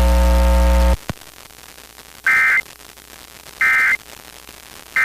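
A loud, buzzy, steady tone stops abruptly about a second in, followed by a click. Then come three short, identical screechy bursts of Emergency Alert System digital data tones, the end-of-message code that closes the test.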